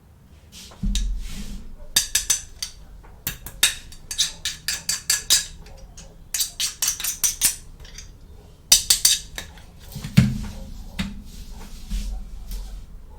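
Small plastic toy playset pieces clicking and tapping against each other in quick runs of sharp clicks, with a couple of soft thumps as things are set down.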